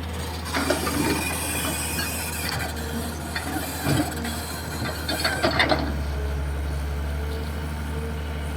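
Hitachi EX220-3 excavator's diesel engine running steadily, with metallic clanks and squeals from the working boom and bucket over the first six seconds. The engine note changes about six seconds in.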